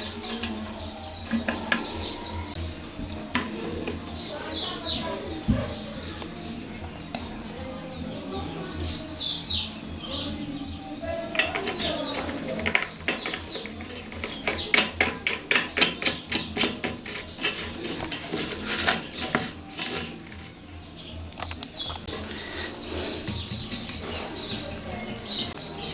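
Birds chirping in short high calls, with a run of sharp rapid knocks, about three a second, through the middle, over a steady low hum.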